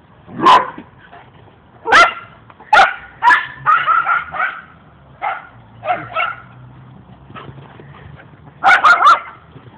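Small dogs barking and yipping at play: short, sharp barks in irregular bursts, with a quick run of several barks near the end.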